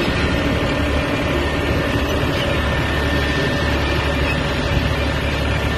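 John Deere tractor's diesel engine running steadily as the tractor drives along, heard from the driver's seat.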